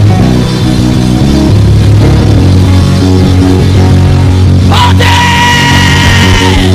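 Live worship band music: sustained low bass and keyboard notes, with a long held high note coming in about five seconds in.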